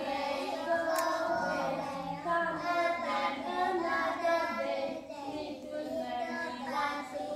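Young kindergarten children singing a song in high voices.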